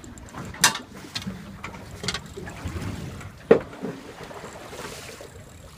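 Wind and water sounds aboard a small fishing boat at sea, broken by a few sharp knocks, the loudest about three and a half seconds in.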